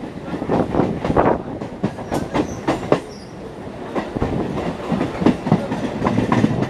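Electric multiple-unit (EMU) local train's wheels clattering over rail joints and points, a run of irregular metallic clanks over a steady running rumble, heard from the open doorway.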